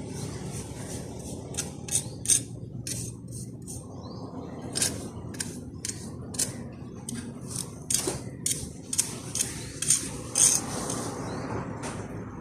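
Irregular sharp scrapes and clinks of a metal tool, such as a trowel, working premix concrete, about two a second, the loudest near the two-second mark and around ten seconds in.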